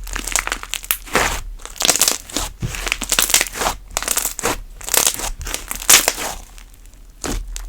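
Cream slime being squeezed and played with by hand: a quick, irregular run of sticky pops and crackles, several a second, dropping off briefly near the end.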